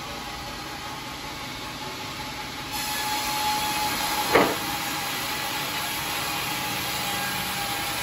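Band sawmill running with a steady whirr and a faint steady tone, louder from about three seconds in, and a single sharp knock about four seconds in as the hollow teak log is turned on the carriage.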